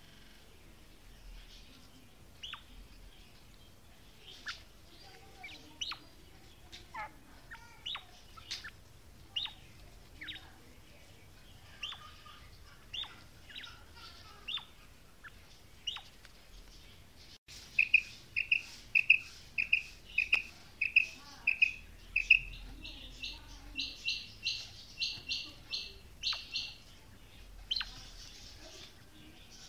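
Female quail calling: scattered short, sharp downward chirps at first. Then comes a fast run of repeated piping notes, about two a second, that jump higher in pitch partway through and stop after several seconds.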